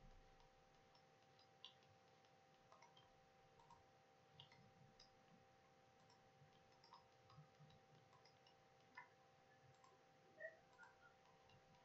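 Near silence broken by faint, irregular computer mouse clicks, about a dozen of them, as edges are picked one after another. A faint steady hum sits underneath.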